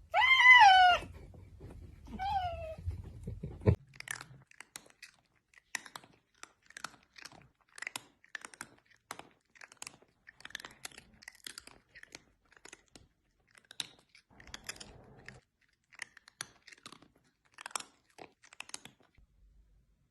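A cat meows twice, the calls falling in pitch, then chews with a long run of quieter, irregular crunches, like dry food being eaten.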